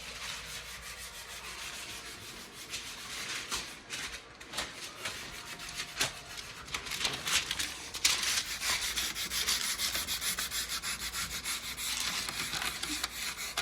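Hand sanding of a cabinet surface with sandpaper, a scratchy rubbing that scuffs the finish so the primer will grip. It grows louder about eight seconds in, turning into quick, even back-and-forth strokes.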